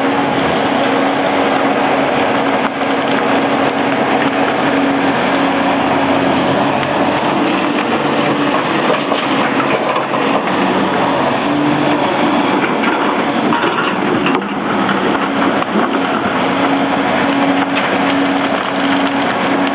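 Komatsu PC300-7 excavator's diesel engine running under load as the machine works, loud and continuous, its tone wavering up and down, with a rough crunching noise of work over it.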